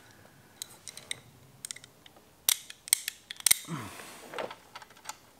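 Metal bracket and bolts clicking and scraping against the motorcycle's tail subframe as a homemade license-plate bracket is test-fitted, with small scattered clicks and a handful of sharper metallic taps about halfway through.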